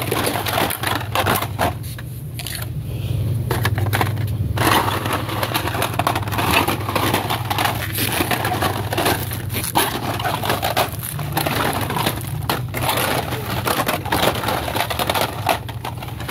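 Carded die-cast toy cars being flipped through and shoved along their hanging pegs: a busy run of plastic blister crinkles, card scrapes and clicks over a steady low hum.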